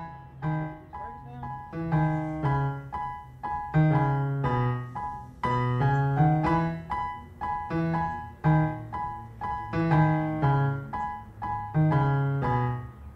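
Piano music: a melody of struck notes that ring and fade, over low bass notes.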